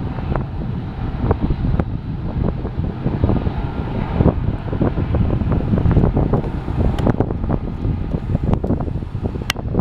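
Strong wind buffeting the microphone over the low rumble of a BNSF freight train passing, with scattered clicks and knocks.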